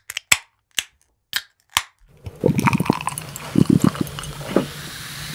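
A quick series of about six sharp clicks, then beer being poured into a glass: an uneven glugging gurgle that settles into a steady fizzing hiss near the end.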